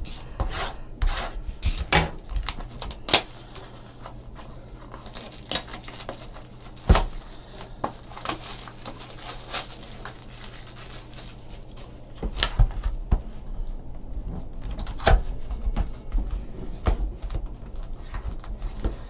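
Shrink wrap being cut and peeled off a cardboard trading-card hobby box, the plastic crinkling, with scattered clicks, taps and scrapes of the box being handled. From about twelve seconds in, the cardboard lid is opened and the mini boxes inside are handled, with closer, busier rustling and knocks.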